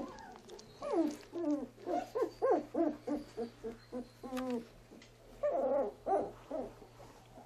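Young Doberman puppies crying: many short calls that rise and fall in pitch, in quick succession, in two bouts with a brief pause between them about four and a half seconds in.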